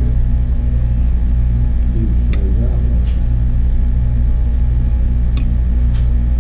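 Steady low droning hum of room machinery such as air conditioning or fans, with a few short clicks of tableware.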